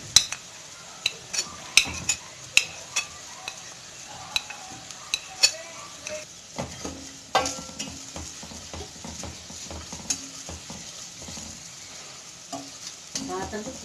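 Wooden spoon stirring chopped onions and spice powders frying in oil in a stainless steel pot, over a steady sizzle. In the first half the spoon knocks sharply and irregularly against the pot; after that it settles into a steadier scraping stir.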